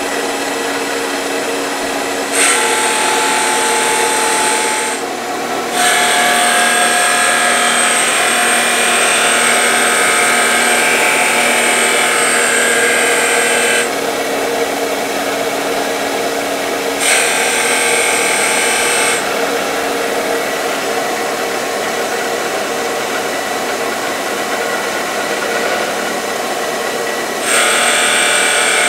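CNC-converted wood lathe spinning a wooden spindle, with a motor-driven rotary cutter making passes along it: a steady motor whine, broken by spells of harsh rasping as the cutter bites into the wood. The spells come about two seconds in, for about three seconds, again from about six to fourteen seconds in, briefly near the middle, and again near the end.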